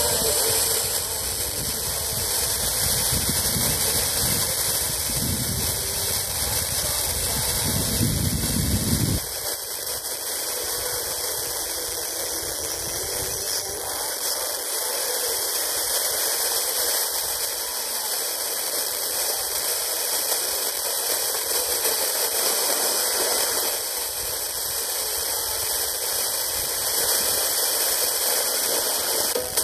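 FM radio static from a TEF6686 receiver: steady hiss of a weak or empty channel during a band scan. About nine seconds in, the low rumble in the noise drops away and only the hiss remains.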